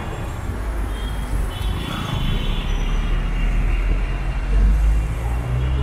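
Steady city road traffic: low engine and tyre rumble from cars and buses passing close by, swelling louder about three-quarters of the way through, with a heavy vehicle's engine drone setting in near the end.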